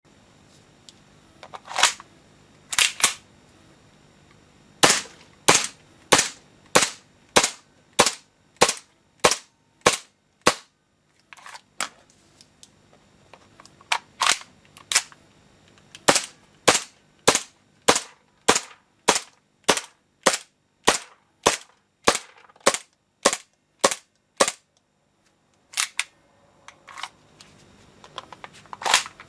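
KWA TT-33 gas blowback airsoft pistol firing: a long string of sharp cracks in several groups, the longest a steady run of about two shots a second, with short gaps between the groups.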